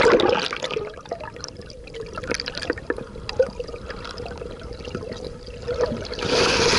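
Water heard from just below the surface: a splash as the microphone goes under, then muffled sloshing and gurgling from a dog paddling close by, over a steady low tone. Near the end a louder hiss of splashing as the microphone comes back up.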